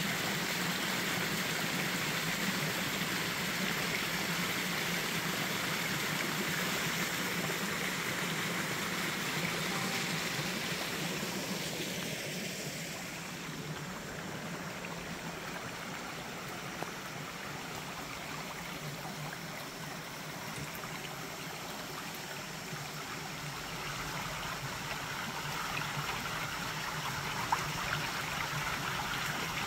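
Small woodland stream running over rocks, a steady rushing and trickling. It grows a little fainter for several seconds in the middle, then louder again near the end.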